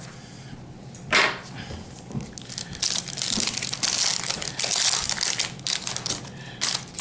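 Foil wrapper of a Pokémon trading card booster pack being torn open and crinkled in the hands: a sharp crackle about a second in, then dense crinkling for about four seconds.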